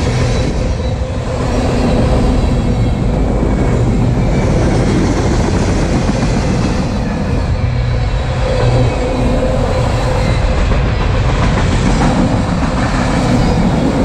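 Freight cars of a manifest train rolling past close by at speed: a loud, steady noise of steel wheels running on the rails.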